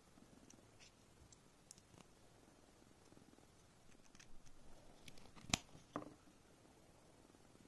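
Faint handling of a small clear-plastic USB dongle and a microSD card, with a few light plastic clicks. One sharp click comes about five and a half seconds in, followed by a second one about half a second later.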